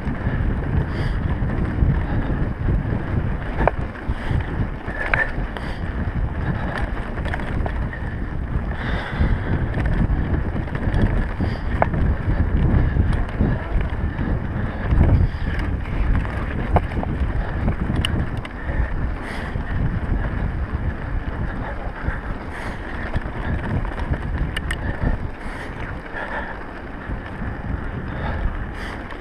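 Wind buffeting the microphone of a camera riding on a mountain bike, over the rumble of knobby tyres rolling on a dirt track, with scattered clicks and rattles from the bike.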